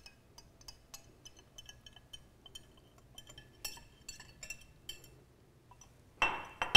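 Wire whisk clinking and scraping against a small glass bowl as vinaigrette is scraped out of it: a rapid, irregular run of light clinks. Near the end comes a louder clatter with a short ring as the glass bowl and whisk are set down on the stone counter.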